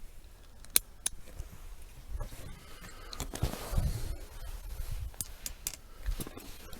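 Scattered sharp clicks and rustling, like equipment being handled, with one louder click just under a second in and a longer rustle near the middle.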